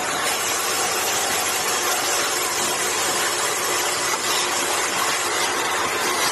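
Automatic aerosol-cap assembly machine running: a steady, dense mechanical noise with a hiss-like top and no clear beat.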